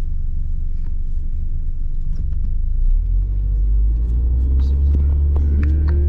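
Car driving, its low road and engine rumble heard from inside the cabin, growing louder about three seconds in.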